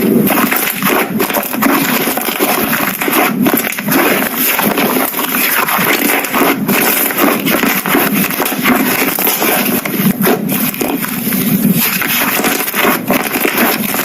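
Slime being squished and pressed by hand, a dense, unbroken run of small wet clicks and crackles.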